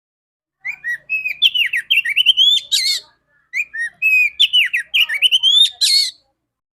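Female Oriental magpie-robin (kacer) singing: two near-identical phrases of loud whistled notes with quick rising and falling slurs, each phrase ending in a harsh, scratchy note, with a short pause between them.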